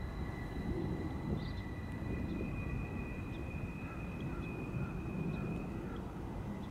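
Low, steady rumble of a freight train going away, with a thin, steady high-pitched whine above it that shifts up in pitch about two seconds in.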